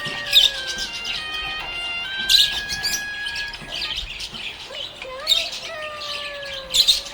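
Budgerigars chirping in quick bursts, loudest about a quarter second in, around two and a half seconds, about five seconds and near the end, over background music of long held notes.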